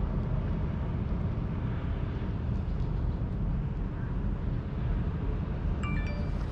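Steady low rumble of outdoor background noise, with a brief high chirp about six seconds in.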